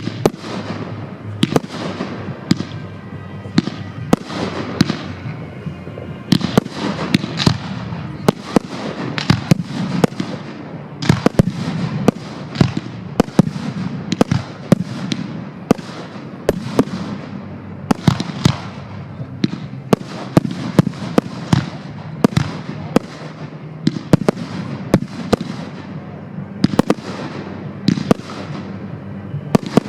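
Aerial fireworks going off in quick succession: a dense run of sharp bangs, often two or three a second, many of them followed by a fading hiss.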